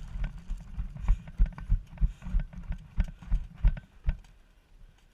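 Running footsteps: a steady run of heavy thumps, about three a second, fading out near the end.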